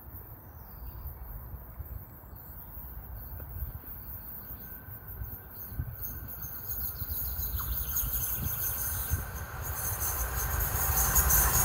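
Class 66 diesel freight locomotive approaching from a distance, its sound growing steadily louder over the second half. A faint high steady tone builds with it from about halfway through.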